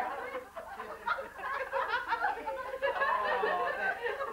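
A group of women laughing together, their voices overlapping.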